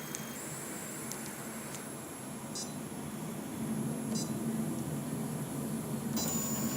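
CraftBot 3D printer's stepper motors running: a steady high whine with two short beep-like tones, and a low hum that grows louder about halfway through.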